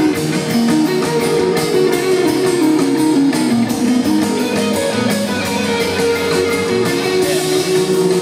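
Rock band playing live through an arena sound system: an electric guitar picks a repeating run of single notes over a held tone, with drums keeping a steady beat.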